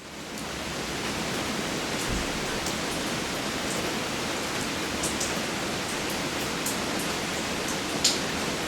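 Steady rain falling, a constant hiss with individual close drops striking as short sharp ticks, one louder drop near the end. The sound fades in over the first second.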